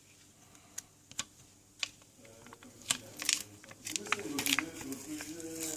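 Small sharp clicks and taps of tools and plastic and metal parts being handled while a smartphone is taken apart, scattered at first and coming thicker from about three seconds in.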